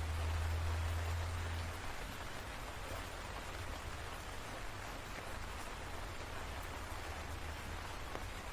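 Steady rain, with a low rumble of thunder that fades out about two seconds in.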